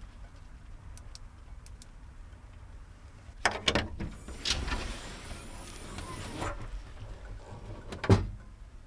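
A door being worked: a couple of sharp clicks, a sliding rush lasting about two seconds, then a single heavy thump near the end.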